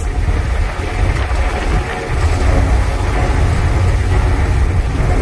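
Pipistrel Alpha Electro's water-cooled electric motor and propeller running at about 28 kW, a little above cruise power and around 1800 RPM, heard from inside the cabin: a steady, deep drone with a hiss above it.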